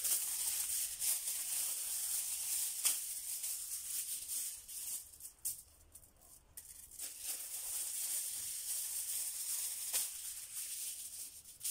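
Aluminium kitchen foil crinkling and rustling as sheets are pulled off a roll and handled, with a few sharp crackles. It goes in two stretches with a quieter pause of about a second and a half halfway through.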